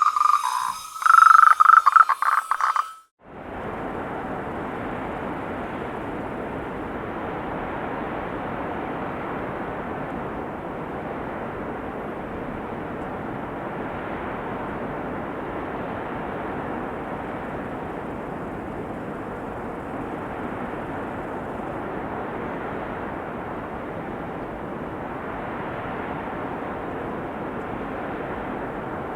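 Frogs croaking in pulsed calls for about the first three seconds. After a short break comes a steady, even rush of flowing water.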